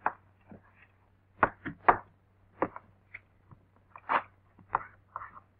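Irregular knocks, taps and thumps from a class of students at wooden school desks, about a dozen over a few seconds and the loudest about four seconds in: deliberate classroom noise-making behind the teacher's back.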